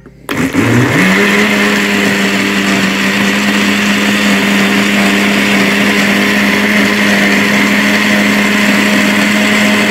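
Countertop blender motor starting up, rising in pitch over about a second, then running steadily at high speed as it blends a full jar of juice.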